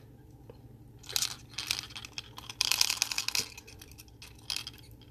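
Plastic packaging crinkling and rustling as it is handled, in irregular bursts, heaviest through the middle with a short burst near the end.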